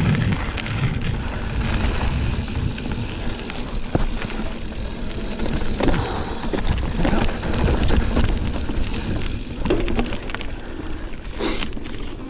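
Giant Fathom 29 mountain bike rolling along a dirt trail: a steady low tyre rumble with scattered knocks and rattles from the bike over bumps.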